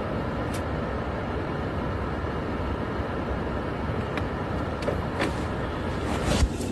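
Car running, a steady noise of engine and road, with a few sharp clicks and a louder knock near the end.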